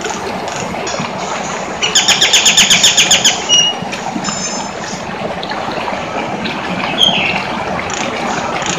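Nias hill myna calling: a fast run of about a dozen loud, harsh notes about two seconds in, then a few short high whistles, over a steady rushing background noise.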